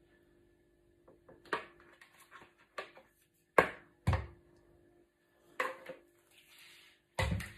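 Scattered knocks and clicks of a jug and glass bowl as thick custard is poured and the jug is lifted away, with the sharpest knocks about three and a half and four seconds in.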